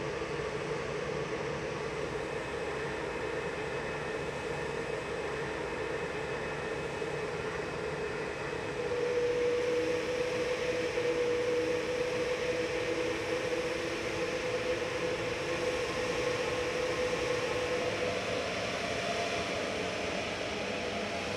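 Jet airliner engines running: a steady roar with a whining tone that gets louder about nine seconds in, and a second, higher tone joining near the end.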